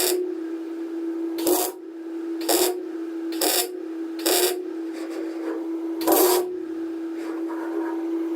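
MIG welder tacking a sheet-steel patch piece in place: about six short bursts of welding, roughly a second apart with a longer pause before the last, over a steady hum.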